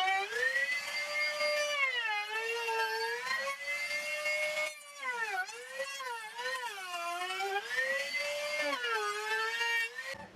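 High-speed power tool motor whining, its pitch repeatedly dipping and recovering as the tool is loaded and eased off the work. It cuts off near the end.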